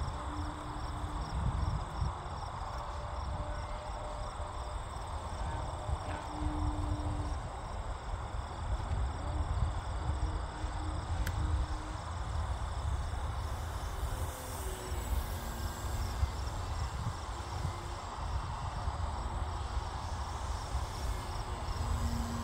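Insects chirping in a steady, even pulse that fades about halfway through, over the low rumble of wind on the microphone.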